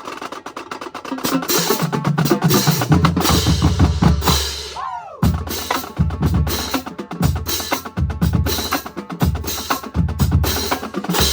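Marching band drumline playing a cadence: rapid snare and tenor drum strokes over tuned bass drums hitting at several different pitches. It builds from soft to loud over the first second or so, with a short break a little before halfway.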